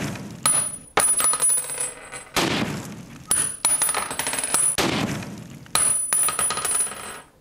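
Cash register 'cha-ching' sound effect, repeated three times about two and a half seconds apart. Each one is a sharp clunk followed by clicks and a high metallic ringing.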